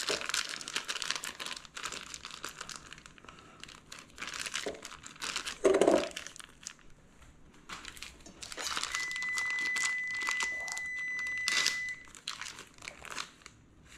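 Plastic film wrapper of a pack of crab stuffing crinkling and tearing as it is peeled and squeezed out by hand over a stainless steel bowl.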